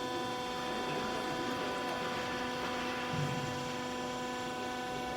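Steady electric hum: one low tone with evenly spaced overtones, holding unchanged throughout.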